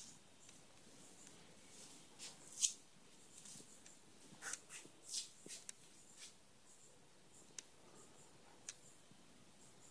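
Faint handling noise: scattered light clicks and brief rustles, with a sharper click about two and a half seconds in and a cluster of rustles around the middle.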